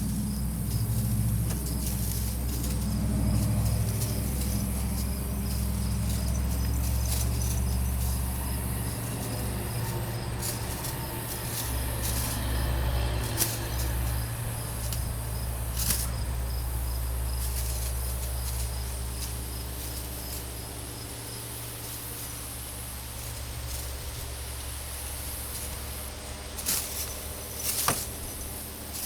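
A steady low motor hum that fades about two-thirds of the way through, with insects chirping faintly in a steady high pulse and a few sharp clicks near the end.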